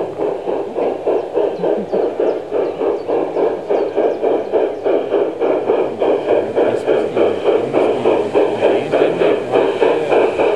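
LGB G-scale model steam locomotive's sound unit chuffing steadily as the train runs, about three or four chuffs a second.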